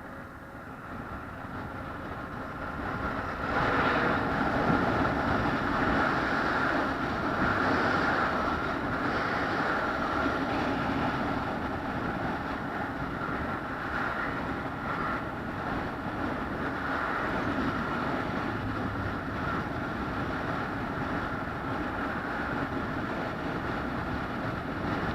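Steady running noise of a vehicle in motion. It grows louder about three and a half seconds in, then holds at an even level.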